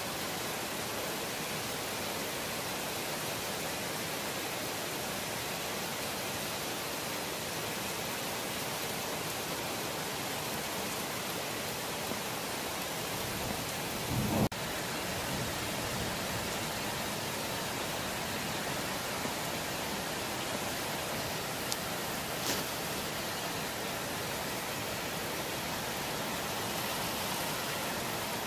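Steady heavy rain hissing during a thunderstorm. About halfway through comes a brief low rumble that ends in a sharp click, and later a couple of small ticks.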